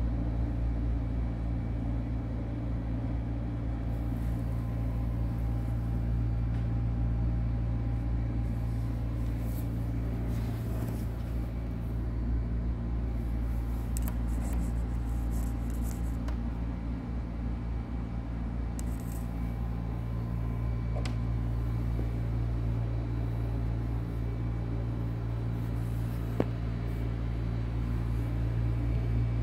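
Steady low mechanical hum, with a few faint rustles and a single sharp click near the end.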